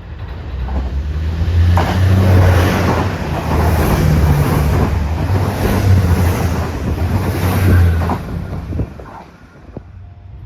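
JR HC85 series hybrid diesel train passing through at speed: a low engine drone with rushing wheel and wind noise builds about a second in and fades after about eight seconds, with a few sharp clicks of wheels over rail joints.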